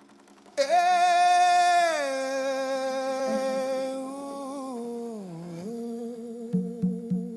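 Wordless vocal humming: one long held note that slides down to a lower pitch twice, opening a devotional song. Near the end a steady rhythmic accompaniment of short low notes begins under it.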